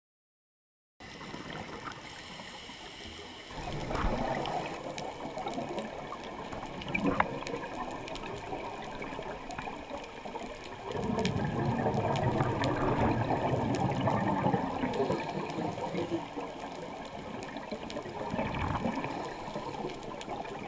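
Underwater sound heard through a dive camera: rushing water and gurgling bubbles. It starts after a second of silence, surges briefly a few times, and swells into a louder bubbling rumble of about seven seconds in the middle.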